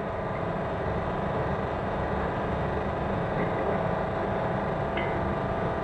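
GLW FS50 oil filtration unit's electric pump motor running with a steady hum as it circulates compressor oil through the filter.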